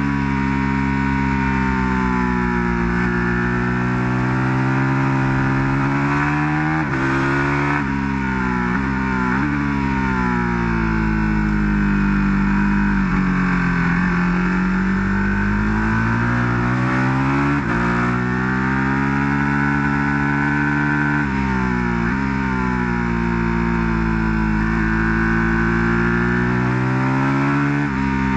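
Ducati 1299 Panigale S's 1285 cc Superquadro V-twin at full track pace, revving up and down as the bike brakes into corners, blips down through the gears and drives back out. The engine note rises and falls over and over, with sudden pitch steps at each gear change.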